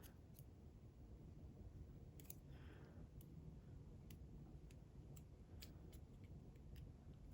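Faint, scattered clicks of small metal tools against the parts of a disassembled pin-tumbler lock, as a stubborn part is worked on to pop it off, with a brief soft hiss about two and a half seconds in.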